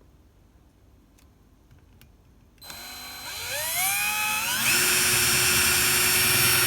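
Electric drill starting up about two and a half seconds in, its whine rising as the motor spins up, then running steadily at full speed while boring the knob hole through a kitchen cabinet door.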